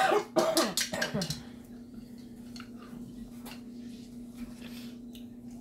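Eating at a table: loud noisy eating sounds in the first second or so, then scattered light clicks of chopsticks and a fork against ceramic bowls, over a low steady hum.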